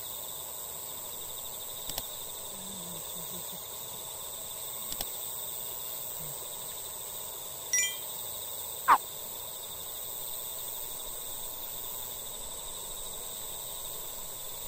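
Steady evening insect chorus of crickets trilling, with faint mouse-click sound effects about 2 and 5 seconds in, a short bell chime near 8 seconds as the subscribe button is pressed, and a brief tone falling in pitch just after it, the loudest sound here.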